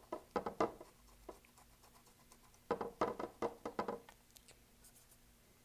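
Paintbrush scrubbing and dabbing acrylic paint onto a canvas: two short runs of quick scratchy strokes, the second about two and a half seconds later.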